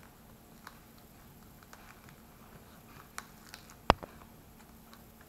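Outer skin of a luffa gourd being peeled away by hand from the fibrous sponge inside: faint scattered crackles and tearing ticks, with one sharp click nearly four seconds in.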